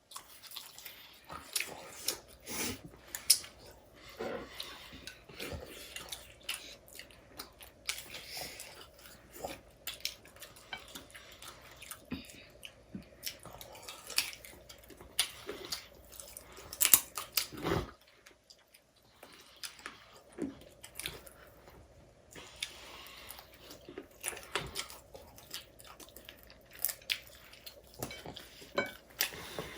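People eating chow mein: close chewing sounds, with scattered clicks of cutlery against plates.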